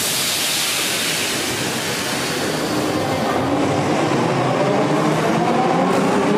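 Class 81 metro train pulling out of the station: a hiss at the start, then the whine of its traction motors climbing steadily in pitch as the train gathers speed.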